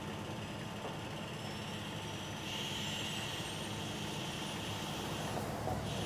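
Fire truck's diesel engine running steadily, kept running to drive the aerial ladder's hydraulics, with a faint high whine that slowly rises in pitch.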